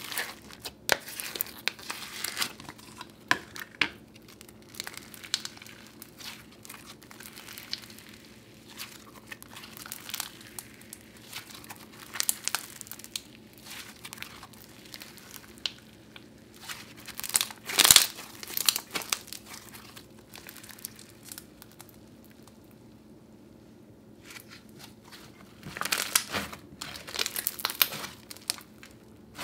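Hands squishing, poking and stretching a crunchy clear-base snow fizz slime, giving irregular crackling and crunching pops. A louder burst of crackles comes about two-thirds of the way through, and another busy run near the end.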